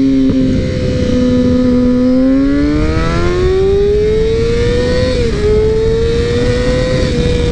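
2011 Kawasaki ZX-6R's inline-four through a Two Brothers M2 slip-on exhaust, accelerating hard under load. The engine note climbs steadily, drops suddenly at an upshift a little past five seconds in, then climbs again.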